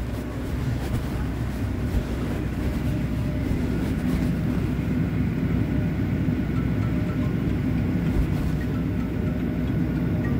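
Steady hum and air rush of an airliner cabin parked at the gate during boarding, with a few faint knocks.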